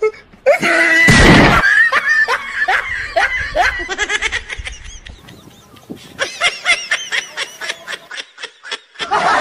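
People laughing in runs of short 'ha-ha' pulses. A higher-pitched laugh comes in about six seconds in. A loud, harsh burst of noise comes near the start.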